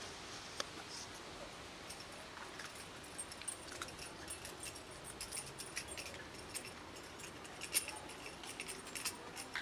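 Cats crunching dry cat food: faint, irregular small clicks and crackles that come thicker from about three seconds in.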